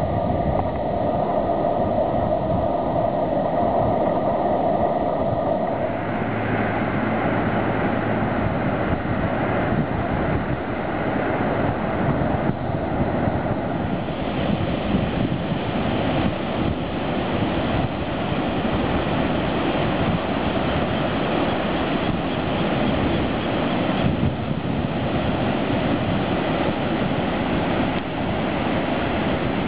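Steady rush of ocean surf washing up the shore, with wind buffeting the microphone.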